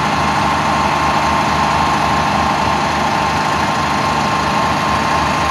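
Fire truck engines running steadily at idle: an even low engine pulse with a constant high whine on top.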